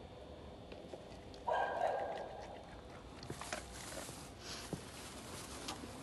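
A dog barks once about one and a half seconds in, followed by rustling and a few light clicks.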